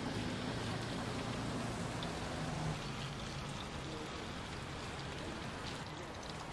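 Rain falling steadily, an even soft hiss of drops.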